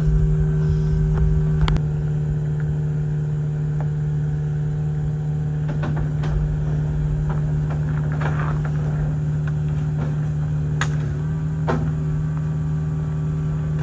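Heavy equipment engine running at a steady speed with a constant hum, a deeper rumble for the first couple of seconds, and a few sharp metallic clanks, one near the start and two more near the end.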